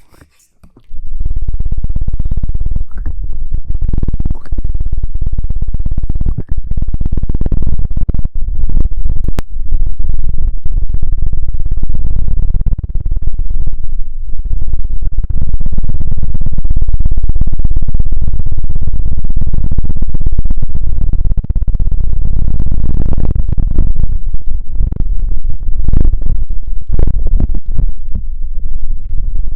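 Loud, close-up scratching and rubbing with a heavy low rumble, an ASMR trigger sound; it starts after a short silent gap about a second in and keeps going with an irregular, crackly texture.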